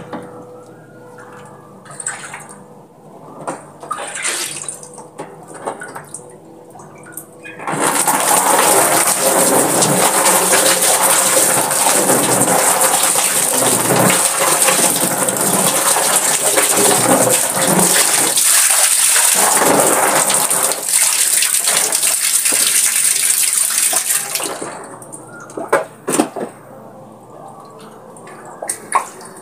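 Water running hard and splashing for about seventeen seconds, starting about eight seconds in and stopping suddenly; before and after it, quieter handling sounds with a few sharp knocks.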